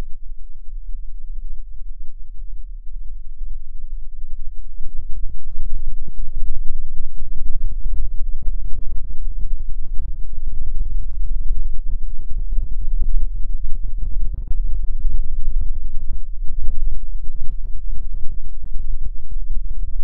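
Martian wind buffeting NASA InSight lander's solar panels, picked up as raw vibration data by its seismometer and played back as sound: a deep low rumble that grows louder and rougher about five seconds in.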